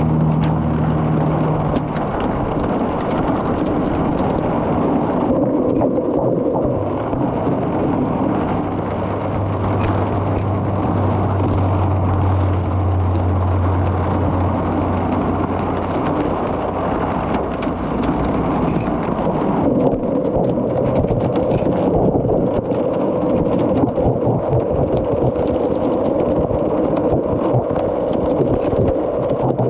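Heavy hail and rain falling on hard surfaces: a dense, constant hiss with many sharp ticks of individual stones striking, and a low steady hum underneath.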